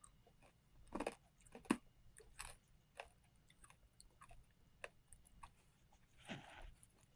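Crunching and chewing rock candy: a few sharp crunches in the first three seconds, then smaller scattered crackles, with a short breathy noise near the end.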